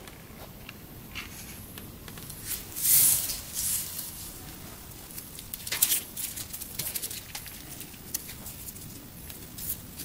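Close-up handling sounds of paracord being threaded and knotted through a knife's lanyard hole: the cord rustles and slides with small scattered clicks. A louder rustle comes about three seconds in, and a sharp tap just before six seconds.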